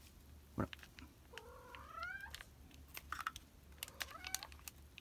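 A cat meowing twice, each call rising in pitch: a longer, louder one about a second and a half in and a fainter one near four seconds in. A soft thump just before the first meow, and scattered crackles of dry leaves underfoot.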